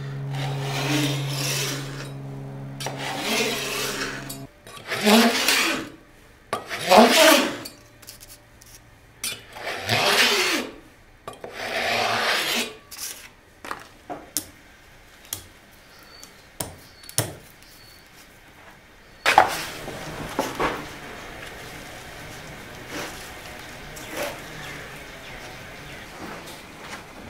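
Veneer saw drawn along a steel straightedge, cutting through wood veneer in about six scraping strokes, each a second or so long. A low steady hum sits under the first few strokes. Later come a few light clicks and a steady low background noise.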